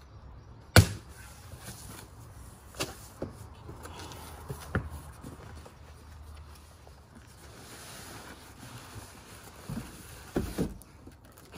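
Cardboard box being opened and handled: a sharp crack about a second in as the flaps come open, then scattered knocks and the rustle of cardboard, with a few more knocks near the end as the box is tipped up.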